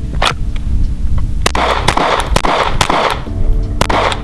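A string of rapid 9mm pistol shots, roughly two a second, each a sharp crack with a short ring after it, fired after a draw from the holster.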